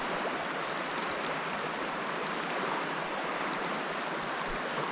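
Steady rushing of a swollen, flooded river's muddy current.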